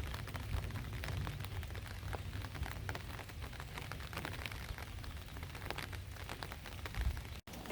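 Steady rain, with many sharp drops ticking close by over a low rumble. The sound cuts out for an instant near the end.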